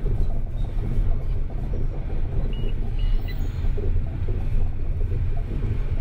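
Steady low rumble of a car driving through city streets, heard from inside the vehicle, with two short high beeps about two and a half and three seconds in.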